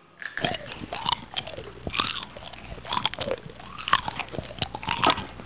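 Crunching and chewing of a dry, uncooked Maggi instant noodle block bitten raw: a dense run of irregular sharp cracks and crackles.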